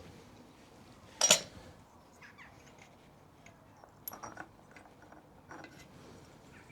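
Metal engine parts and hand tools clinking and tapping while an engine is dismantled: one sharp clink about a second in, then a few lighter taps.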